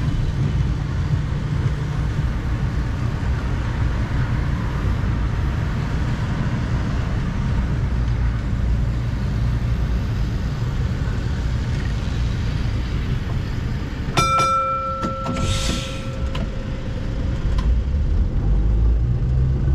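Steady low rumble of the 1925 W2-class tram standing at a stop, with road traffic. About two-thirds of the way through comes a single strike of the tram's gong, ringing on for a couple of seconds, then a short hiss. Near the end the rumble grows louder as the tram pulls away.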